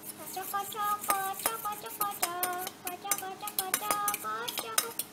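Eggs being beaten with a metal utensil in a stainless steel bowl: rapid, irregular clinks and scrapes of metal on metal. A faint voice carries a tune underneath.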